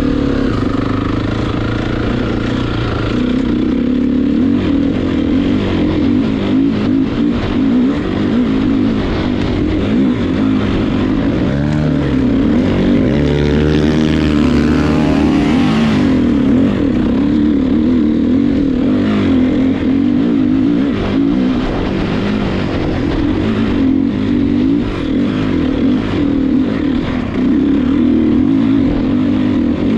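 Dirt bike engine running under way, its pitch rising and falling with the throttle. Between about twelve and sixteen seconds in, it revs up and down through several quick pitch sweeps.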